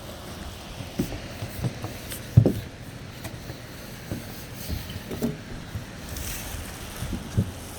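Nails being driven into plywood wall sheathing: irregular dull thumps, about ten in all, the loudest about two and a half seconds in.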